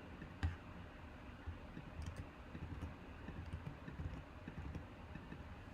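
Faint computer keyboard and mouse clicks over a low steady hum, with one sharper click about half a second in.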